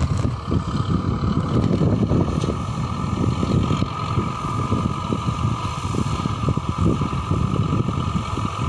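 John Deere 2120 diesel tractor running under load while driving a PZ 165 rotary disc mower through grass, with a steady high whine over a low, uneven rumble. Wind buffets the microphone.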